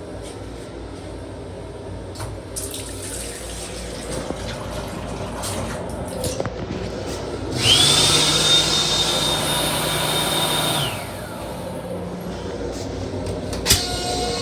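Toilet in an M7 commuter railcar flushing: a sudden rush of water and air with a steady high whine that winds up at the start, lasts about three seconds and falls away as it cuts off. A sharp click comes near the end, over a steady low rumble.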